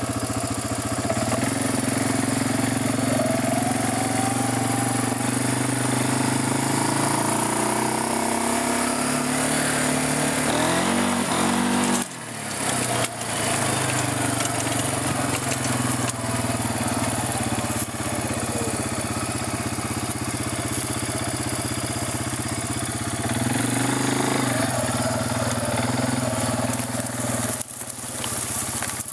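An engine running steadily, its pitch rising and falling a few times, with a brief break about twelve seconds in.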